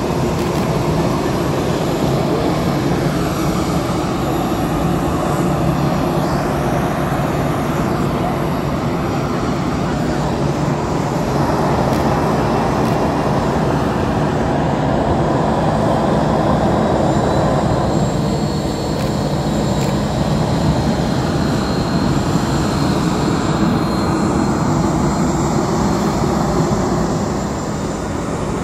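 Airbus A319's twin jet engines running at taxi power, a steady rumble with a whine. A higher whine comes in about halfway and holds, and the sound fades near the end.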